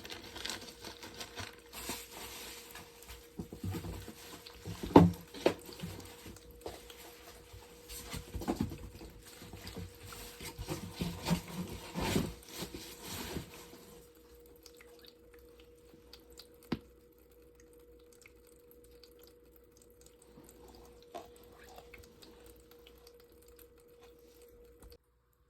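Water pattering and dripping, with knocks and handling noises that are loudest about five seconds in and again around twelve seconds. After about fourteen seconds only a faint steady hum and a few ticks remain, and the hum stops just before the end.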